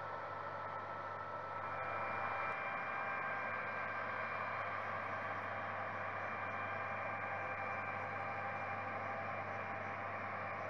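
John Deere combine harvesters and a tractor running at a distance while harvesting wheat: a steady mechanical whir with faint steady tones, a little louder from about two seconds in.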